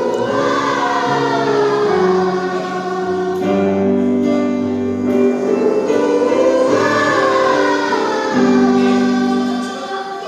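Church choir singing in several parts, holding slow sustained chords that shift every second or two, fading near the end.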